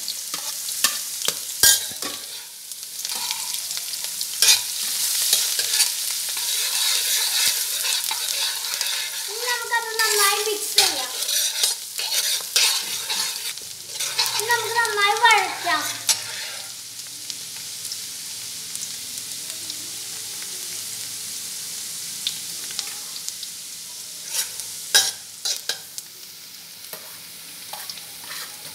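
Chopped garlic tipped into hot coconut oil with ginger, sizzling as it fries in a wok while a spatula stirs and scrapes against the pan with frequent clicks. Twice, about ten and fifteen seconds in, a short wavering squeak cuts through the sizzle, which settles to a quieter steady frying in the second half.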